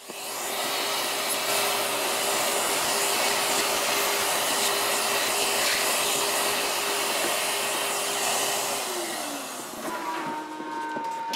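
Vacuum cleaner switched on, running steadily as its crevice nozzle sucks loose glazing debris off the glass panes, then switched off about nine seconds in, its motor whine falling as it winds down.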